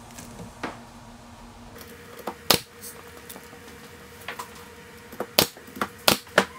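Pneumatic brad nailer firing brads into thin alder face-frame strips on a plywood shelf unit: a sharp shot about two and a half seconds in, then three more in quick succession near the end.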